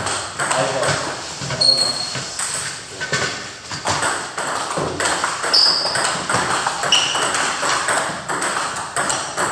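Table tennis balls clicking off paddles and tables in quick, irregular succession as rallies go on at two tables.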